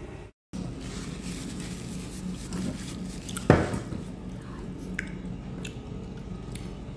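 A steady low hum of room noise, with one sharp knock about three and a half seconds in and a few lighter clicks after it.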